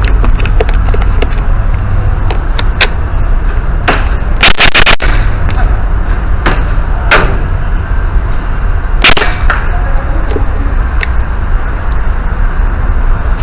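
Airsoft guns firing: a short burst of several rapid shots about four and a half seconds in, single shots about seven and nine seconds in, and lighter clicks scattered between. A steady low rumble runs underneath.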